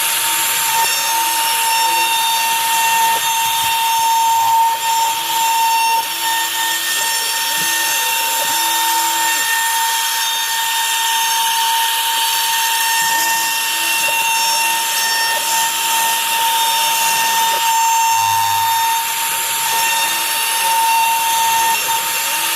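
CNC router spindle running with a steady high whine while its bit cuts through wood in a rough clearance pass, with a constant cutting hiss. Short low hums come and go under it.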